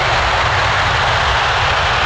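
Jet airliner's engines heard as a loud, steady rush of noise over a low rumble.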